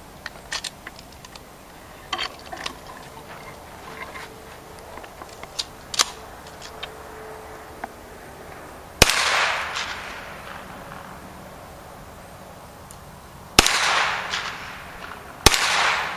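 Hi-Point 995 9mm carbine fired three times, a few seconds apart, each shot sharp with about a second of echo trailing off. A few light clicks come before the first shot.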